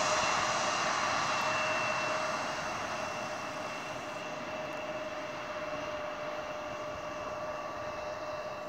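Embraer E175's twin GE CF34-8E turbofan engines running at low thrust as the jet rolls along the runway away from the listener: a steady whine made of a few fixed pitches over a rushing noise, fading over the first few seconds and then holding steady.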